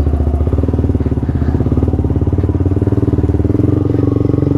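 Yamaha R15 v2's single-cylinder four-stroke engine running steadily at an even speed, with no revving, just after its tune-up and engine check.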